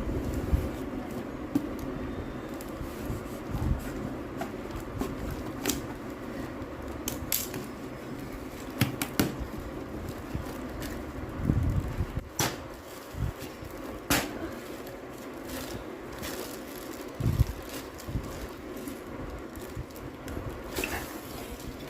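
Steady fan hum with scattered clicks, knocks and a few dull thumps of objects being handled.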